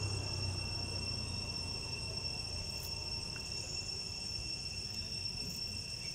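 Steady, unbroken high-pitched insect drone held on two main pitches, over a low background rumble.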